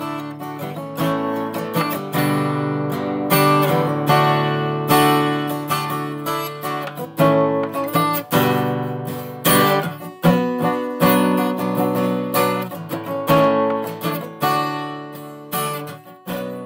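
Outro music: acoustic guitar strumming chords.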